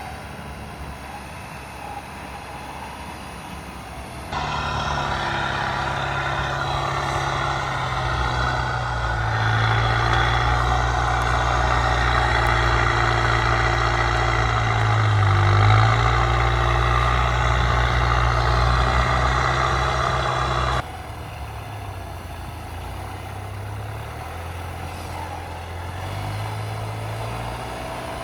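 Mitsubishi L200 pickup engine running with small shifts in pitch. A louder stretch begins abruptly about four seconds in and ends abruptly about twenty seconds in, with a strong hiss over the engine note.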